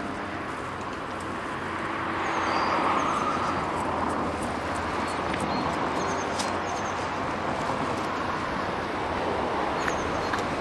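Low-floor electric tram approaching slowly: a steady rumble of wheels and running gear mixed with street noise, a little louder from about two seconds in. Short high chirps of small birds come and go above it.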